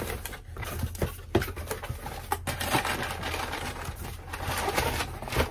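Cardboard shipping box and sneaker box being handled and opened: scattered knocks and taps with rustling of cardboard between them.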